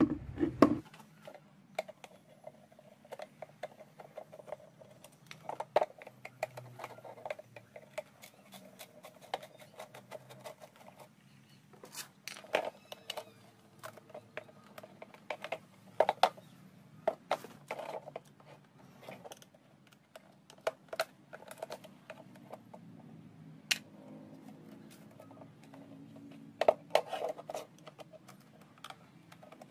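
Irregular sharp plastic clicks, taps and knocks as a motorbike headlamp housing and its amber indicator lenses are handled and taken apart.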